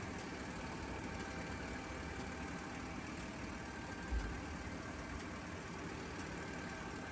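An engine idling steadily at a fairly low level, with a faint tick about once a second. A soft low thump comes about four seconds in.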